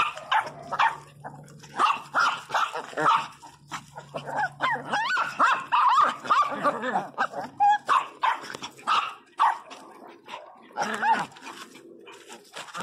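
A pack of small dogs, miniature pinschers and puppies, barking and yipping in short, sharp, overlapping bursts, most crowded and continuous around the middle.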